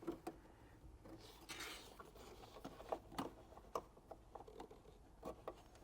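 Faint, scattered small clicks and rustling of plastic wiring-harness connectors being handled and lined up before being plugged together.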